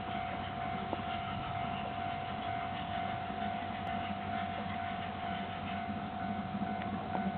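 Railway level-crossing alarm sounding, one steady high tone held without a break, over a low steady rumble.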